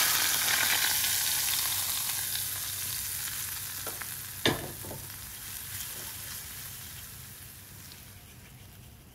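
Hot oil, heated to just below smoking point, sizzling as it hits grated garlic, seasoning powder, soy sauce and vinegar in a bowl; the sizzle is loudest at first and dies away slowly. A couple of light knocks sound around the middle.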